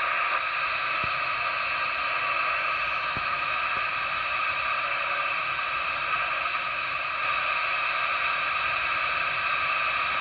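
Cobra 19 DX CB radio's speaker giving a steady hiss of static on AM, with no station coming through. A few faint ticks are heard in the first four seconds.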